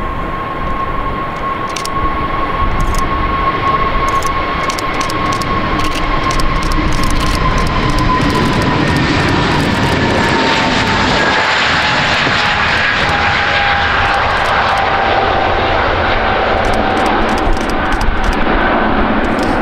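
Airbus A321neo's turbofan engines at takeoff thrust through the takeoff roll and lift-off: a dense jet roar with a steady high whine that drops in pitch as the airliner passes, the roar growing louder about eight seconds in.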